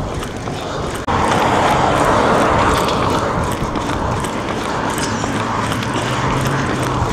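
Runners' footsteps on tarmac, then from about a second in a loud, steady rush of a car driving past close alongside the runners, tyres on the road with a low engine hum, cutting off suddenly near the end.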